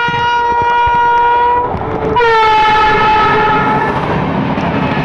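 Train horn sounding two long blasts, the first cutting off about a second and a half in and the second starting just after two seconds in, over the rush and clatter of red passenger coaches passing close on the next track.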